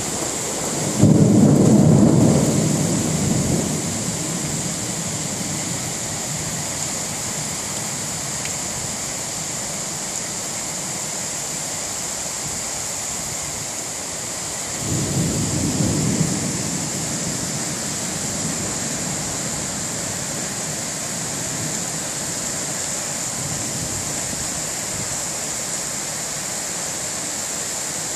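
Heavy downpour hissing steadily, with two rolls of thunder rumbling under it: a louder one starting about a second in and dying away over a few seconds, and a shorter one about halfway through.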